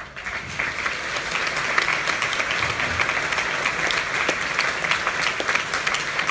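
Audience applauding: many people clapping together at a steady level, coming in all at once.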